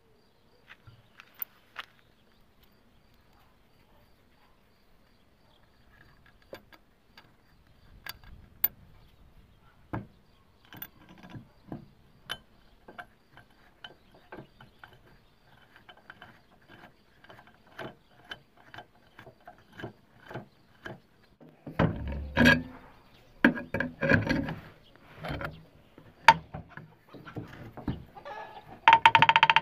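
Light metallic clicks and taps of parts and tools being handled on a Honda Dio scooter engine's aluminium crankcase, growing busier as it goes. A cluster of louder knocks and scrapes comes in the last several seconds, ending in a brief metallic ring.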